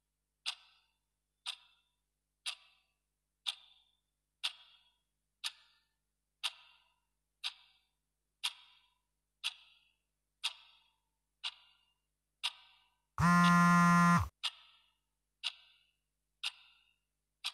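Clock ticking steadily, one sharp tick a second. About thirteen seconds in, a loud low buzz lasting about a second cuts in, dropping in pitch as it stops, and the ticking carries on.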